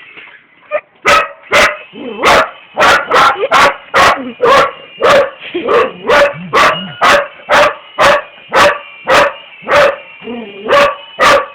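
Dog barking over and over at a remote-control toy helicopter, about two barks a second, with the helicopter's steady high motor whine underneath.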